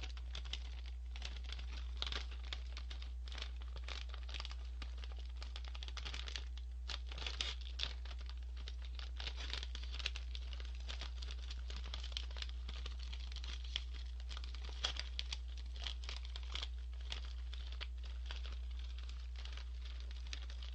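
A plastic Cheetos snack bag being torn open and handled: irregular crinkling and tearing throughout, over a steady low hum.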